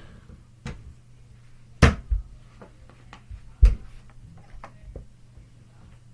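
Sharp knocks and clicks of plastic slime-making bottles and containers being handled and set down, about half a dozen, the loudest near 2 s in and just before 4 s in, over a faint steady low hum.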